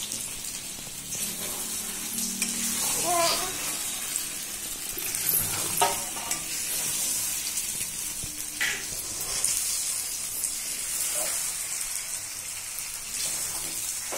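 Marinated chicken pieces frying in hot oil in a metal kadai, sizzling steadily, while a metal spatula stirs them and now and then scrapes or knocks against the pan.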